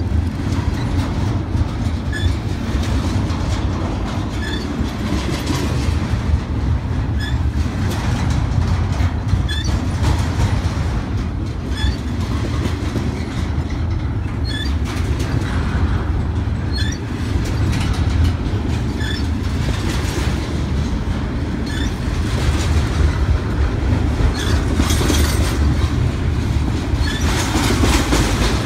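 Double-stack intermodal freight train's well cars rolling past close by: a steady heavy rumble of steel wheels on rail with clickety-clack over the joints. Short high squeaks recur every second or two.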